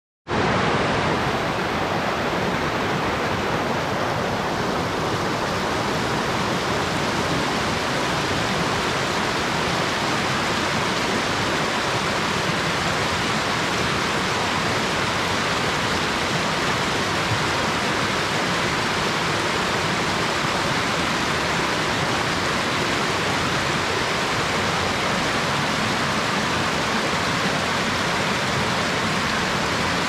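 Waterfall and the rocky creek below it running, a steady, unchanging rush of falling and tumbling water.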